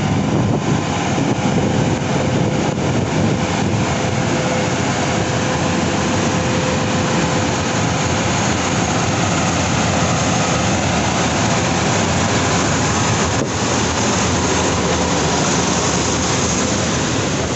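Steady, loud engine drone with a constant whine, unbroken and unchanging in level.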